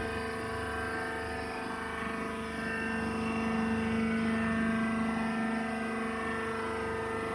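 Wood shaving baler machine running with a steady mechanical hum made of several even tones. The lowest tone swells louder around the middle and eases off again.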